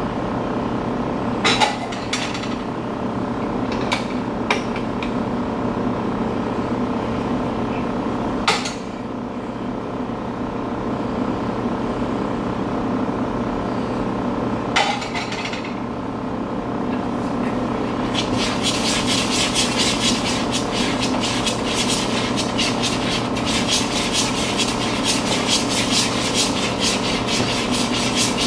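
A utensil beating quickly against a mixing bowl, a fast run of clicks starting about two-thirds of the way in, over a steady hum. Before that there are a few separate knocks of kitchenware being handled.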